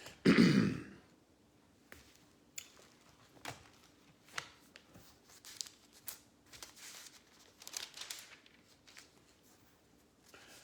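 A short murmur of voice, then thin Bible pages being turned and rustled: scattered short crinkling swipes and light clicks.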